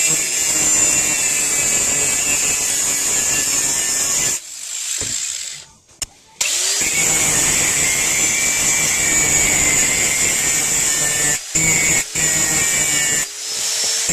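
Harbor Freight 90-amp flux-core wire welder's arc crackling and sputtering in runs, stopping for a longer pause about four and a half seconds in and for a few short breaks near the end. It is welding thick railroad-spike steel, which this small welder can't handle.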